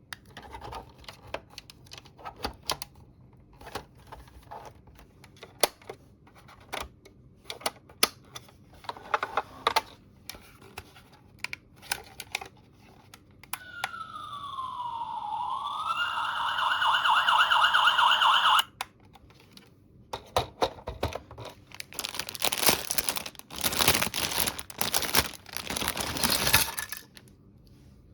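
Small plastic toy pieces clicking and tapping as they are handled, then an electronic toy sound effect about halfway through: a siren-like tone that dips in pitch, rises again and pulses quickly for about five seconds before cutting off suddenly. Rustling packaging follows near the end.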